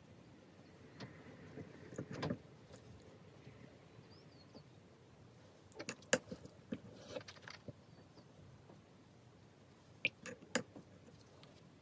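Light taps and clicks of a small paintbrush against a water pot as it is rinsed, in three short clusters, with a brief soft swish of water.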